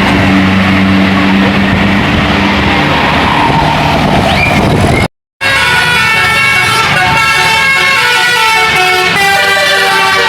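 A bus passing, with engine and road noise under a low, steady horn tone. After a brief gap, a multi-trumpet 'telolet' bus horn plays a quick melody of stepping notes.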